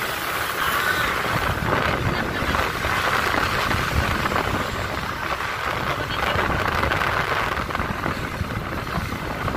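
Steady running noise of a moving vehicle on the road, with low rumble and wind buffeting the microphone.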